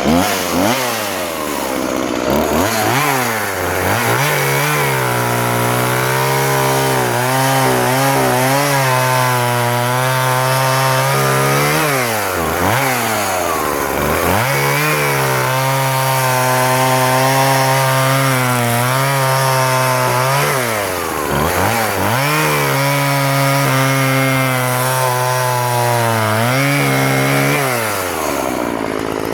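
Husqvarna 136 36cc two-stroke chainsaw running just after a restart. It is blipped up and down a few times, then held at high revs in three long stretches, with the revs dropping and picking up again between them.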